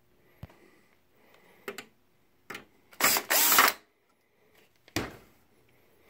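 Hands working on a projector's sheet-metal chassis and screws: a few light clicks and knocks, with one louder hissy burst of under a second about three seconds in.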